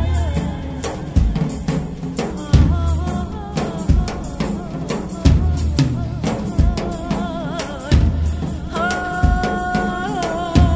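Recorded Kurdish folk song with a deep drum beat falling about every 1.3 seconds under a wavering, ornamented melody, which settles into one long held note near the end.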